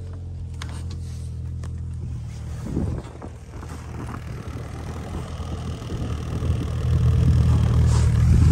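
Snowmobile engine running with a steady low hum, getting louder in the last couple of seconds.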